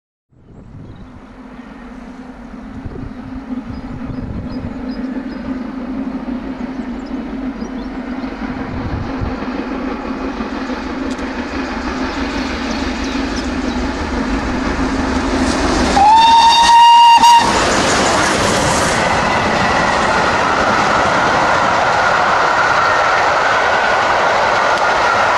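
Double-headed GWR steam locomotives 6024 King Edward I and 5029 Nunney Castle approaching with their train, the sound of the engines working growing steadily louder. About 16 seconds in, a locomotive steam whistle sounds once for about a second and a half, rising in pitch as it opens; it is the loudest sound here. The coaches then pass close with steady wheel-on-rail noise.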